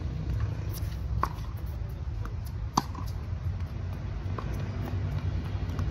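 A tennis ball being hit back and forth on a hard court: sharp pops of racket strikes and ball bounces about a second and a half apart, the loudest near the middle, over a steady low rumble.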